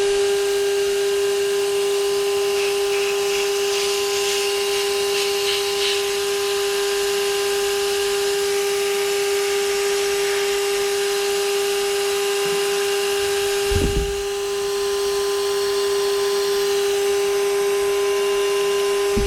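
Shop vac motor running steadily on blow, with a constant high whine, pushing air into the car's exhaust to pressurize it for leak-hunting. There is a little hissing about four seconds in and a brief low thump about fourteen seconds in.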